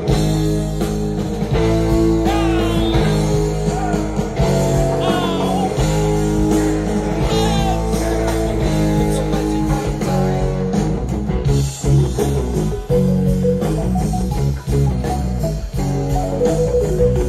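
Live rock band playing, electric guitar prominent over a steady bass and drums, with notes bending in pitch in the first few seconds.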